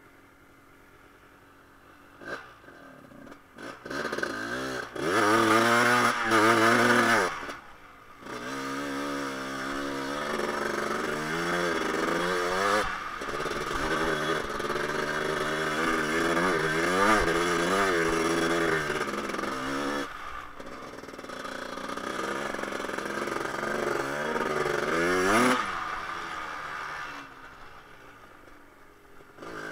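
A 1988 Honda TRX250R ATV's new 250 cc two-stroke single-cylinder engine being ridden hard, its revs climbing and falling again and again. It eases off almost to nothing near the start, briefly at about eight seconds, and again near the end, and pulls loudest at around five to seven seconds.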